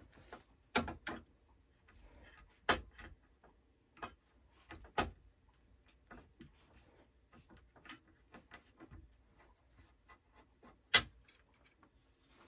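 Scattered sharp metal clicks and knocks of a flathead screwdriver working a stubborn screw out of a paper cutter blade clamped in a bench vise, with four louder clicks standing out among fainter ticks.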